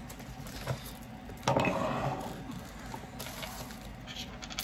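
Handling noise of packaging and items being moved on a table: paper and tissue paper rustling, with a louder rustle about one and a half seconds in that fades over about a second, and a few light knocks afterwards.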